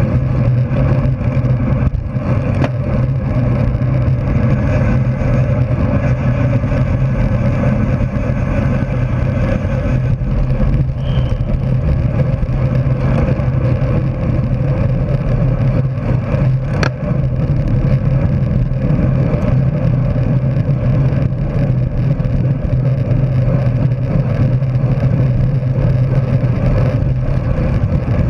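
Steady wind rush and road noise on a bicycle-mounted camera's microphone, riding at racing speed in a pack of road bikes.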